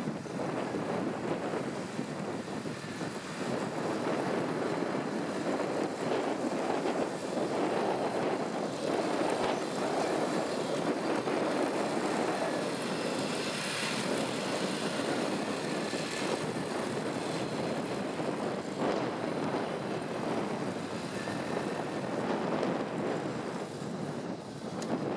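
Radio-controlled model Sherman tank running across sand: a steady mechanical drone that swells and eases without a break.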